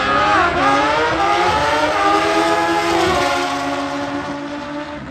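Two drag-racing motorcycles accelerating hard down the strip. The engines climb in pitch and drop back at each gear shift, then fade as the bikes pull away after about three seconds.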